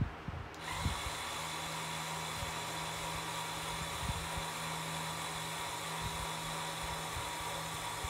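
Small electric motors and gearing of a motorised Mould King Sandcrawler brick model start about half a second in and then run with a steady high whine over a low hum, driving the model forward on its tracks. A few soft knocks come just before the motors start.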